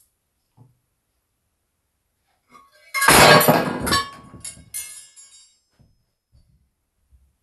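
A metal mug with spoons on its rim crashing down and the spoons clattering, set off by a dog tugging a string tied to a sausage. The loud clatter starts about three seconds in, with several rapid impacts and metallic ringing that dies away over about two seconds, followed by a few faint knocks.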